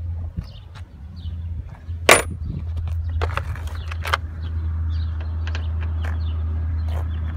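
Metal sockets and tools clinking and clicking in a plastic socket-set case as someone rummages for a 10 mm socket. There is one sharp click about two seconds in and a few more around three to four seconds, over a steady low hum.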